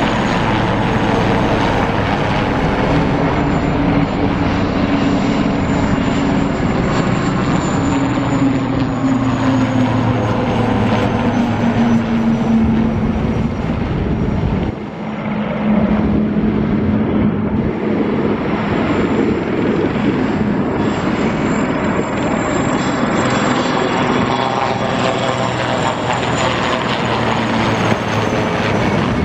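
Military helicopters, Romanian Air Force IAR 330 Pumas, flying low overhead: steady rotor and turbine engine noise with a high turbine whine, the low tones sliding in pitch as they pass. The sound briefly drops about halfway through, then picks up again.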